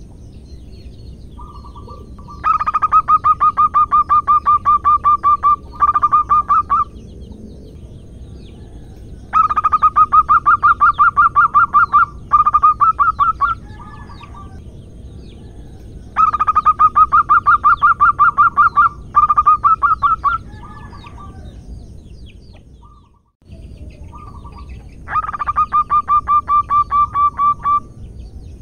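Female zebra dove (perkutut) calling for a male to mate: four bouts of rapid staccato cooing notes, each a few seconds long, most of them preceded by a short softer note.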